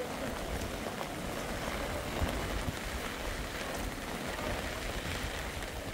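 Rain and a muddy flood stream running: an even, unbroken hiss with a rough low rumble underneath.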